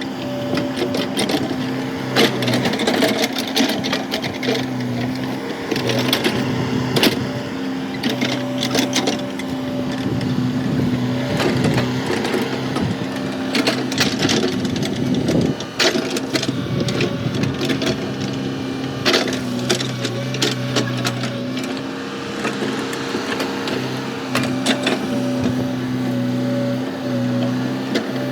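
Komatsu excavator's diesel engine running steadily, with frequent irregular clanks and knocks from the machine at work.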